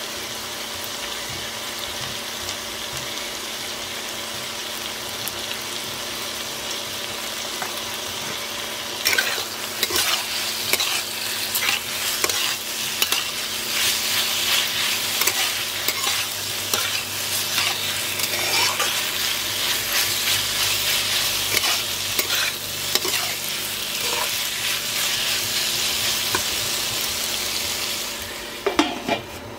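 Brinjal and potato pieces sizzling in oil in a nonstick kadai, then a spatula stirring and scraping through them against the pan from about nine seconds in. The sizzle drops off near the end, with a couple of knocks.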